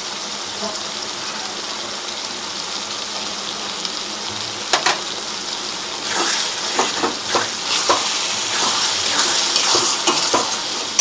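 Spice masala for a curry sizzling steadily in a metal wok, with a single sharp knock about halfway. Then a spatula stirs and scrapes the gravy against the pan in quick, uneven strokes.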